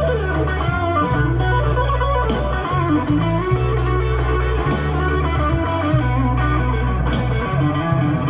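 A song playing back from cassette tape on a Sony TC-KA7ES deck: an instrumental passage of electric guitar over a steady bass line, between sung lines.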